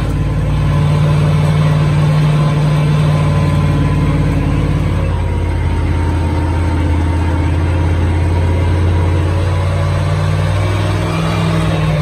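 Megalodon monster-truck ride vehicle's engine running with a steady low drone as it drives, settling to a lower note about four to five seconds in.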